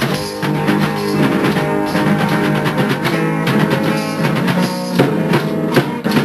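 Band music with guitar and drums.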